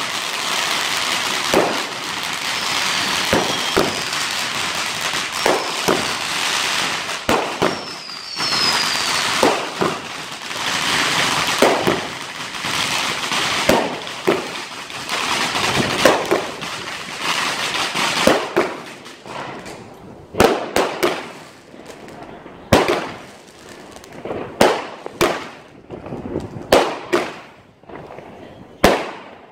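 Fireworks going off: a dense, continuous run of bangs and crackling with a few short falling whistles for the first half. Toward the end it thins out into separate sharp bangs with short gaps between them.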